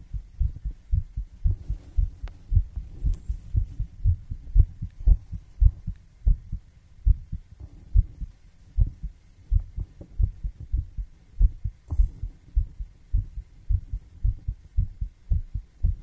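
Heartbeat: a steady rhythm of low, dull thumps, several a second.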